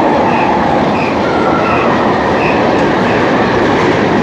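Passenger train running through a rail tunnel, heard from on board: a loud, steady noise of wheels on the track, with faint brief wheel squeals.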